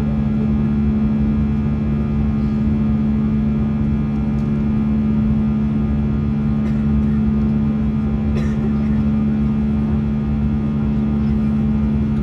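Airliner cabin noise in flight: the steady drone of the jet engines and airflow, with a steady low hum.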